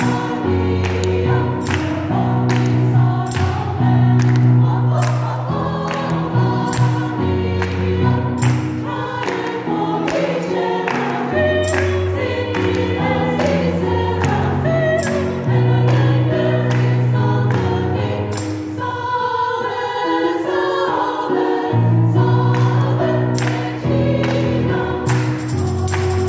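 Women's choir singing a gospel-style hymn with piano accompaniment and hand claps on the beat, about two a second. A little past the middle the piano bass and the claps stop for a couple of seconds, then both come back in.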